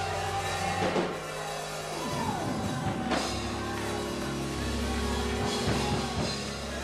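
Live church praise music: a drum kit with cymbal hits playing under sustained keyboard chords.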